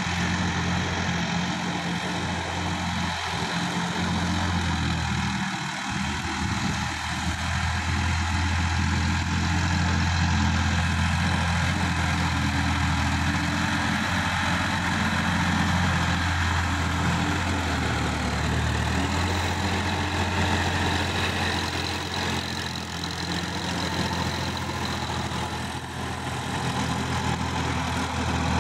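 Sonalika tractor's diesel engine running steadily under load, driving a rear-mounted rotary tiller that churns through dry soil.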